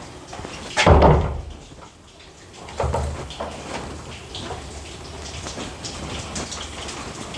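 Old wooden panel door swinging on newly hung hinges, knocking shut against its 2x4 frame about a second in, with a softer thud a couple of seconds later and light knocks as it is moved again.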